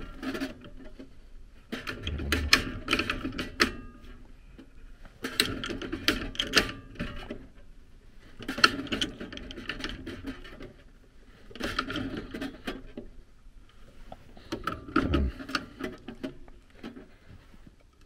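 Pipe wrenches turning a threaded black-iron gas pipe joint on a replacement Honeywell gas valve. About five bursts of metal-on-metal clicking and grating come a few seconds apart, each a stroke of the wrench, with a couple of dull knocks among them.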